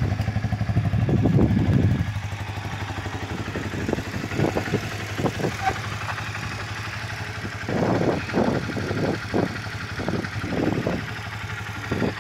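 Kawasaki KL250 Stockman's single-cylinder four-stroke engine idling steadily, with a few short louder swells over it.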